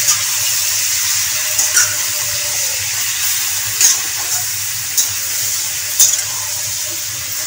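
Raw chicken pieces sizzling in hot oil in a kadhai, a steady high hiss, as they are stirred with a metal slotted spatula; four short sharp clicks from the spatula against the pan.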